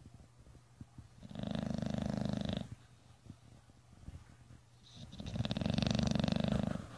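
Bulldog snoring: two long snores about three seconds apart, each lasting around a second and a half.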